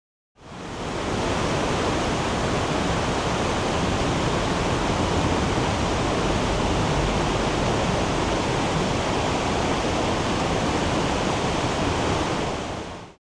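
Rushing water of the Oirase mountain stream: a loud, steady, even rush with no breaks, fading in shortly after the start and fading out just before the end.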